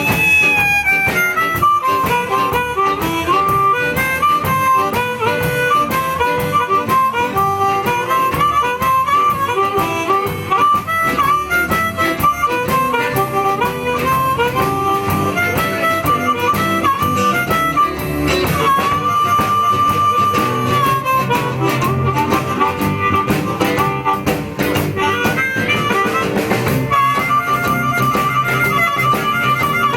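Live blues band playing an instrumental break: a harmonica solo of bent, wavering phrases with one long held note a little past halfway, over guitar and the band's rhythm backing.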